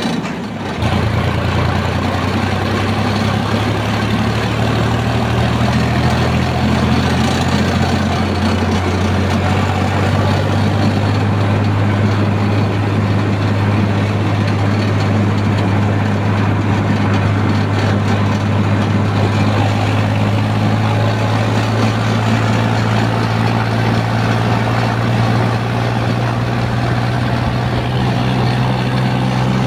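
Sonalika 745 tractor's diesel engine running steadily under way, heard from the driver's seat. The sound dips briefly right at the start.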